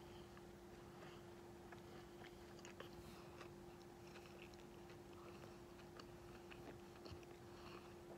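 Faint close-up chewing and biting of stale marshmallow Peeps, with small mouth clicks scattered throughout, over a steady low hum.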